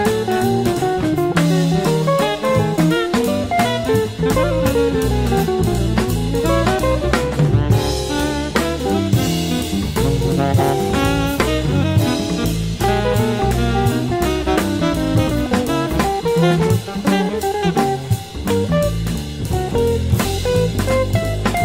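Jazz quartet playing: a drum kit keeps a busy beat under saxophone, with electric guitar and double bass.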